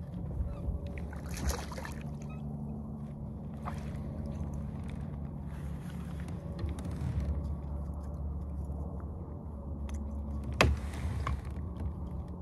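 Kayak on open water: a steady low rumble with a faint low hum, and small knocks and clicks from handling gear in the boat. About eleven seconds in comes one sharp knock.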